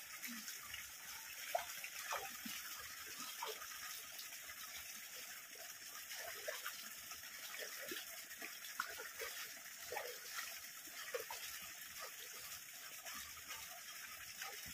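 Shallow stream water trickling and gurgling, with small splashes as hands feel through the water.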